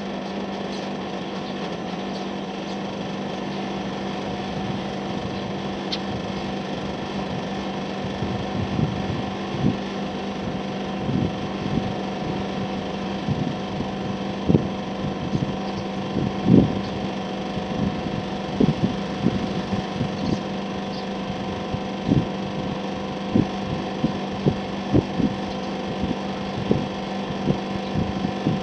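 National CU-915KH mini-split outdoor unit from the 1990s running with a steady low hum. From about eight seconds in, irregular low knocks sound over the hum.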